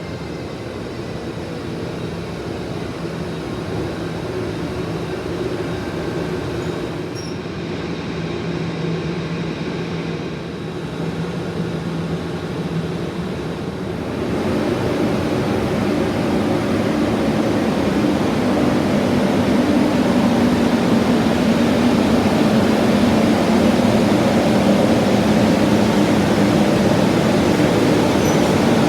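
A train running through the station, a steady rumble with a low hum that grows louder about halfway through and stays loud.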